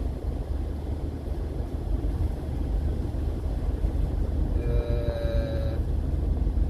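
Steady low rumble of a moving road vehicle. About two-thirds of the way through, a vehicle horn sounds for about a second as one held note of two close pitches.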